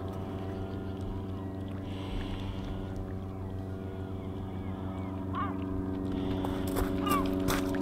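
An engine running steadily at one pitch, with faint short bird calls over it and a few clicks near the end.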